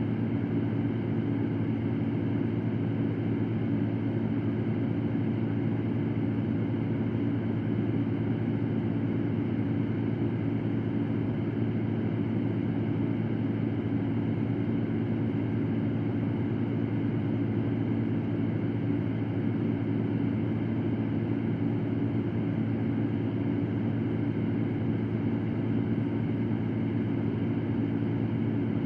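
Fan running steadily: an even low hum with airy noise above it, no change in speed.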